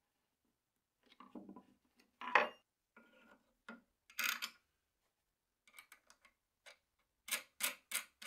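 Faint clinks and knocks of small metal hardware (wrench, bolt, washer and nut) being handled and tightened on a wooden bearing bracket, ending in three sharp clicks in quick succession.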